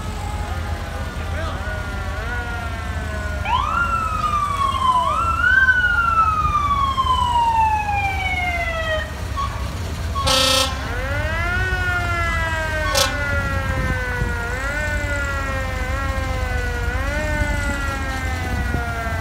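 Several emergency-vehicle sirens wailing at once at different pitches, each rising quickly and falling slowly in overlapping cycles. A short horn blast sounds about ten seconds in, over a steady low engine rumble.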